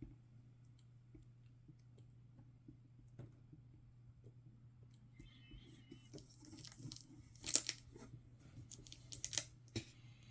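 Faint handling of the opened laptop's parts: a few soft ticks and clicks at first, then from about six seconds in, crackly rustling and crinkling, loudest twice near the end, over a steady low hum.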